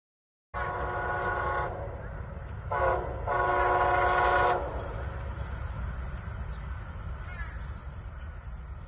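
Distant train horn sounding a chord of several notes: a long blast, a short one, then another long one, the close of the standard grade-crossing signal. A steady low rumble lies underneath.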